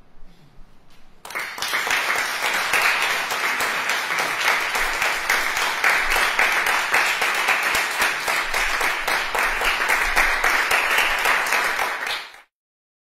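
Audience applauding, starting about a second in and cutting off abruptly near the end.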